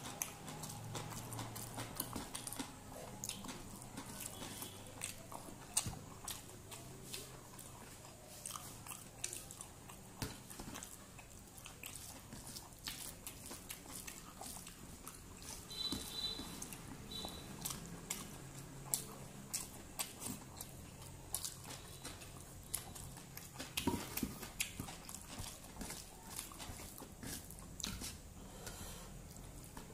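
Close-up eating sounds: a person chewing rice and vegetables with crunches and wet mouth clicks, and fingers mixing rice on a steel plate. Many short clicks and smacks run all through.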